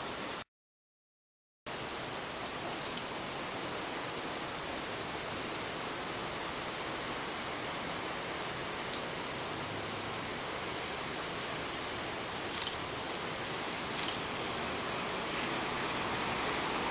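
Heavy rain pouring onto pavement as a steady hiss, with a city bus's engine faintly underneath in the second half. The sound cuts out completely for about a second near the start.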